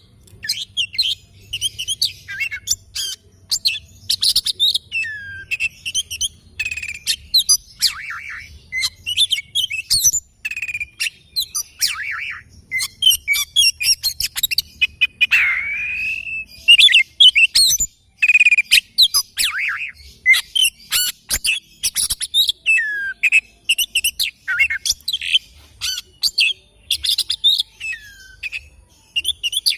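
Oriental magpie-robin (kacer) singing: a fast, varied, unbroken run of chirps and whistles, some of them slurred up or down in pitch.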